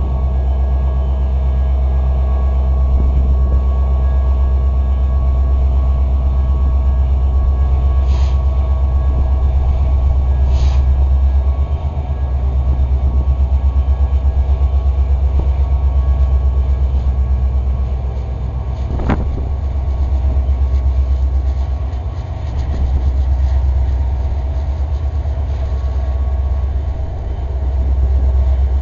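Montana Rail Link diesel-electric locomotives passing at a road crossing, a heavy, steady low engine rumble that swells and dips slightly as the units go by. One sharp clank about nineteen seconds in.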